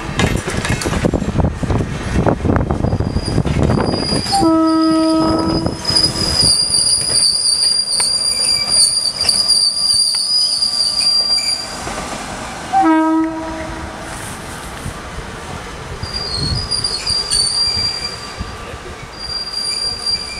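RENFE class 269 electric locomotive hauling coaches past: the rumble of wheels on the rails, two horn blasts (a longer one about four seconds in and a short one near the middle), and a high, steady wheel squeal that comes and goes.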